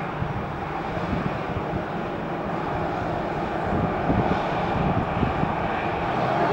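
Jet engines of an Airbus A319 running during pushback by a tow tug: a steady rushing hum that grows a little louder about four seconds in.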